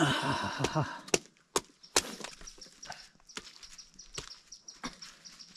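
Large knife chopping into wood on a log, splitting and shaping sticks: a series of sharp, irregularly spaced strikes, about eight in all. A short vocal sound comes at the very start.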